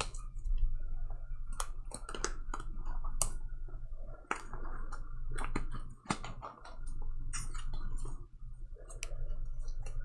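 Scattered light clicks and taps at an irregular pace, over a steady low electrical hum.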